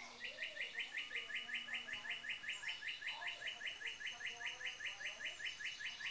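Chickadee calling: a long, unbroken series of short, identical notes, about six a second.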